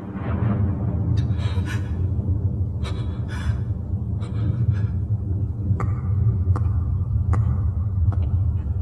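A steady low rumbling drone from the anime's soundtrack, with short sharp taps and clicks scattered irregularly over it, roughly one or two a second.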